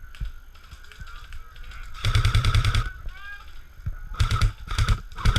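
Airsoft electric gun firing full-auto bursts, a fast rattle of shots: one burst of under a second about two seconds in, then three short bursts near the end.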